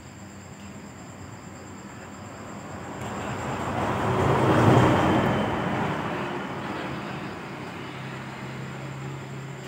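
A road vehicle passing by, its noise swelling to a peak about five seconds in and then fading away, over a steady low hum.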